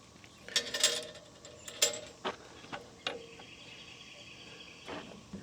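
Scraping and a few sharp metal clicks of spacers and tools being handled while shimming a sawmill bed to raise it slightly.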